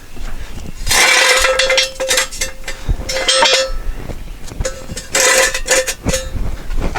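Metal clanking and rattling in several bursts, the loudest about a second in and around three and five seconds in, with a steady metallic ringing tone running through them.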